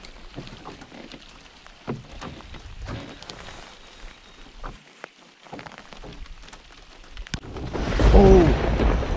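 Thunder: a sharp crack about seven seconds in, then a loud, deep rumble. Before it, only faint scattered ticks.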